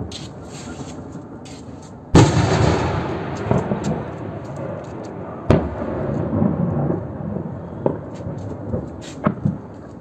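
A heavy explosion goes off about two seconds in and rolls on as a long rumble. A sharp crack follows about three seconds later, then a few smaller bangs near the end. These are blasts from a drone strike on a military airfield.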